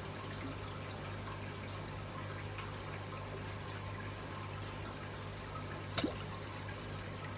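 Steady trickling and pouring of a saltwater aquarium's circulating water, under a low steady hum. A single sharp click about six seconds in.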